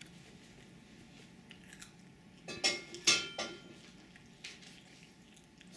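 Tableware clinking: a cluster of four or so sharp clinks that ring briefly, near the middle, with a weaker one a second later, over a faint steady hum.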